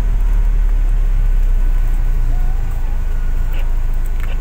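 Steady low rumble of a UV Express van's engine and road noise, heard from inside the cabin while it drives along.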